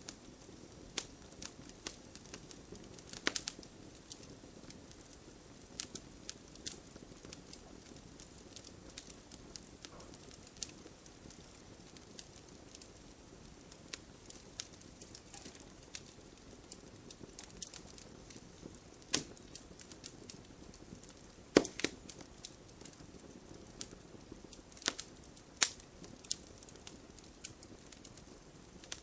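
Bonfire crackling, with sharp wood pops at irregular intervals, the loudest about two-thirds of the way through. Underneath is a steady soft hiss of rain.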